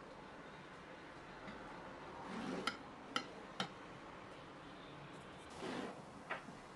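Glass bowls being slid and set down on a wooden tabletop: a short scrape, then three light knocks about half a second apart, and a little later another scrape and knock, over quiet room tone.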